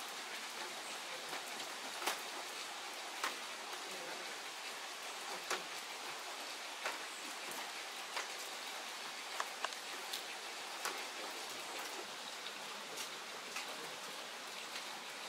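Steady rain hiss with sharp pops at irregular intervals, typical of baseballs smacking into catchers' leather mitts during bullpen pitching.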